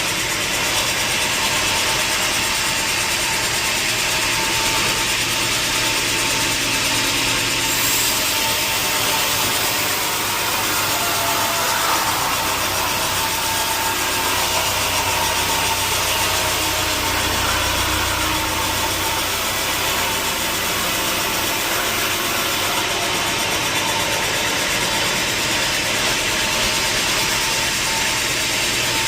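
Sawmill machinery running steadily: a continuous loud mechanical noise with a faint steady whine.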